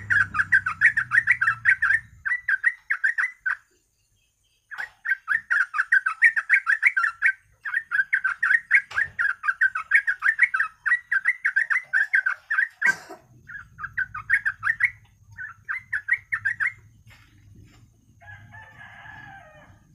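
Sooty-headed bulbul (trucuk) calling in long bursts of rapid, chattering repeated notes, broken once by a short silence about four seconds in. There is a single sharp click about two-thirds of the way through.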